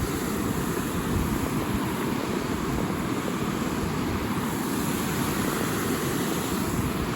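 Steady rushing noise with rough, uneven buffeting in the low end, like wind blowing across the microphone.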